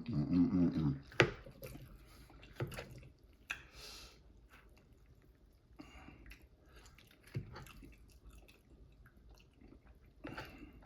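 A person chewing and eating soft food, with wet mouth smacks and small clicks scattered throughout. About the first second holds a short low hum with the mouth full.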